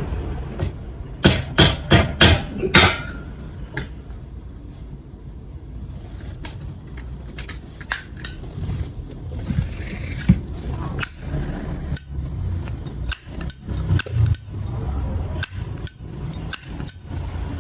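Brass-cased Zippo lighter being flicked open and snapped shut over and over: sharp metallic clacks in quick runs, the later ones followed by a short bright ring from the case.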